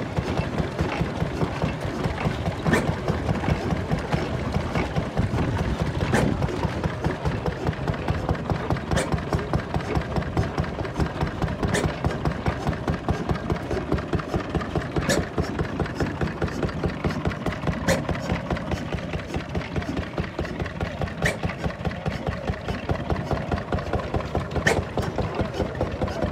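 Vintage stationary engine running steadily with a fast, even chugging, and a sharp crack about every three seconds.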